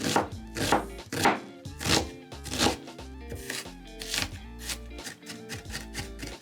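Kitchen knife cutting food on a cutting board, a firm stroke about every half second at first, then lighter, quicker cuts, over background music.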